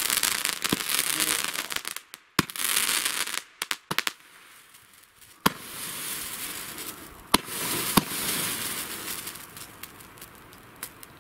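Fire-pot firework battery firing: spark fountains hissing in several loud spurts, with sharp cracks and bangs scattered through, the biggest about two and a half, five and a half, seven and a half and eight seconds in.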